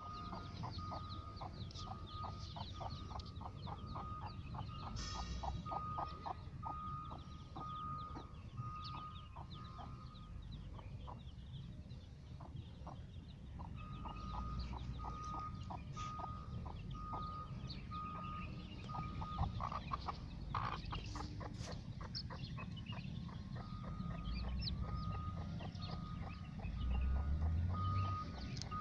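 A mother hen clucking as she leads her brood of chicks, with the chicks peeping around her. Through most of it runs a steady series of short high notes, a little over one a second, with a couple of breaks.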